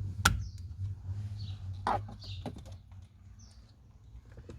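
Sharp plastic clicks and knocks from wiring connectors being handled and snapped into place, the loudest a snap just after the start and a ringing knock about two seconds in, with birds chirping faintly in the background.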